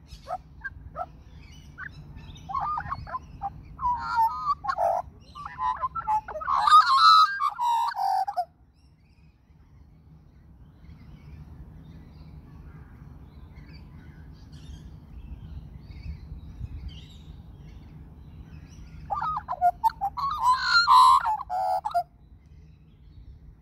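Australian magpie singing close by: a rich run of warbling, gurgling and fluting phrases for about eight seconds, a pause, then another burst of song near the end.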